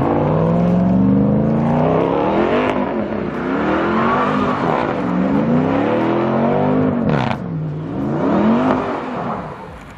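Supercharged 6.2-litre V8 of a Ram 1500 TRX revving up and down several times while the truck spins donuts on loose dirt, with a brief hiss about seven seconds in.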